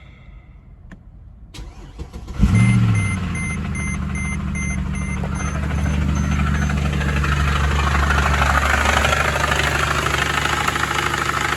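Mercedes ML63 AMG's 6.2-litre M156 V8 cranked and started about two seconds in, with a brief rev flare, then idling with a harsh mechanical racket that grows louder through the middle, the sound of a failed engine: the owner is sure it is the motor and suspects valve train damage. A chime beeps evenly about twice a second for the first few seconds after the start.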